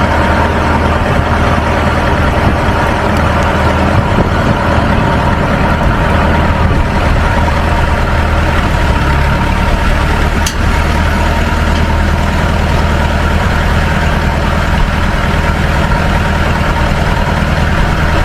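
Tractor engine idling steadily, with one short sharp knock about ten seconds in.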